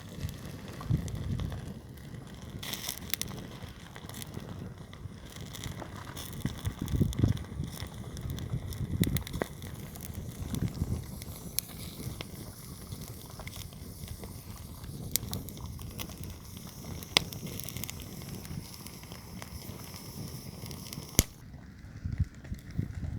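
Campfire crackling, with sharp snaps and pops at irregular moments over a steady hiss. Low dull rumbles come in now and then.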